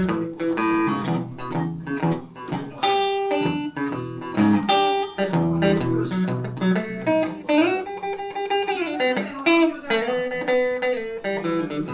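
Solo blues electric guitar, a Telecaster played through a Roland JC-120 amp, picking a slow intro of single notes and double stops, with a note bent up and let back down about eight seconds in.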